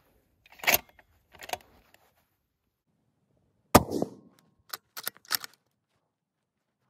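A single shot from a Ruger Precision Rifle in .300 PRC about four seconds in: a sharp crack that fades over about half a second. It is followed at once by a quick run of four sharp clicks, the bolt being worked for the next round. Two softer knocks come in the first two seconds.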